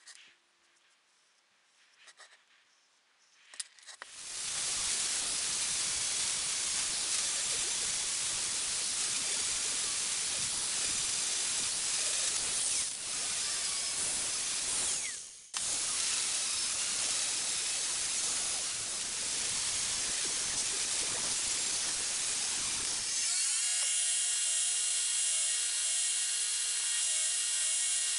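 Angle grinder grinding the steel axe head. It starts about four seconds in as a harsh, steady grinding noise, with a brief break partway through. Near the end it gives way to a belt grinder running with a steady whine as the axe head is ground against the belt, throwing sparks.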